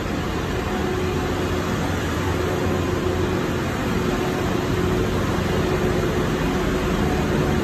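Ship's engine room machinery running: a steady, loud mechanical drone with a constant hum running through it, growing slightly louder about halfway through.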